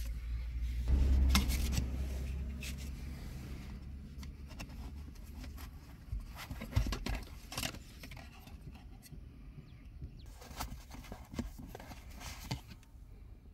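Cardboard box and foam packing insert handled by hand: rustling and scraping with scattered light clicks, and a low rumble from close handling about a second in.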